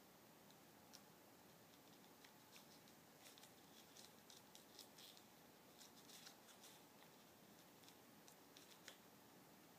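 Near silence, with faint rustles and small clicks of gloved hands handling a wound dressing, clustered in the middle of the stretch and again near the end.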